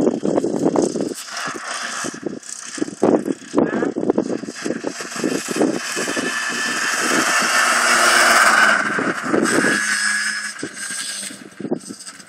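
Engine of a child's small quad bike running as it drives past, growing louder to a peak about eight seconds in, then fading as it pulls away. Wind buffets the microphone throughout.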